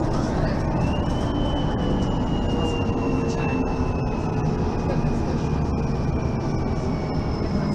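Mercedes-Benz Citaro facelift city bus under way, its drivetrain giving a high whine that climbs quickly in the first second, then sinks slowly and steadily over the running noise of the bus.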